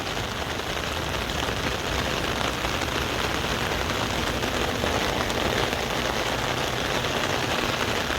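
Heavy rain pouring down and falling on an umbrella held close over the microphone, as a steady, dense hiss.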